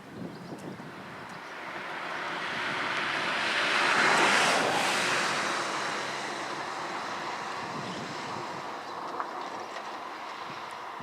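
Noise of a passing vehicle that swells to a rush about four seconds in and then slowly fades away.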